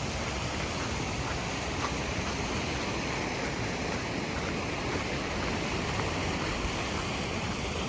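Pacific Ocean surf breaking below the cliffs, an even, steady rush of water noise.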